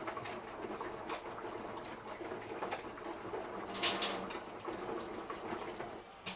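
Samsung Eco Bubble washing machine running a wash cycle, water rushing and sloshing in the drum, with a louder splash about four seconds in. The sound drops away suddenly near the end.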